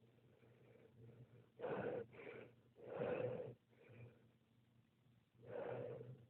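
A woman's breath sounds during a sneezing spell, which she says cold toes bring on. There are four breathy bursts of about half a second each: two close together about a second and a half in, one about three seconds in, and one near the end, with a fainter one between them.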